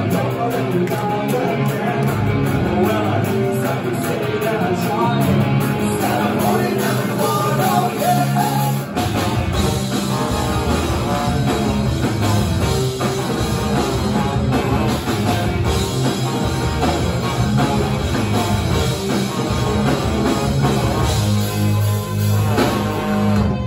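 Ska-punk band playing a song live at full volume: electric guitar, bass and drum kit with trombone and trumpet and sung vocals. The low end fills out about nine seconds in.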